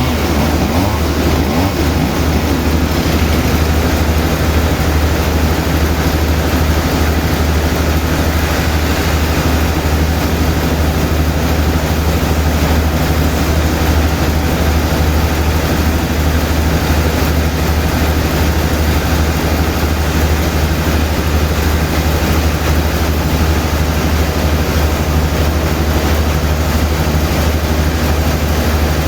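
Sawmill machinery running steadily, a loud, even engine drone with a strong low hum that does not change.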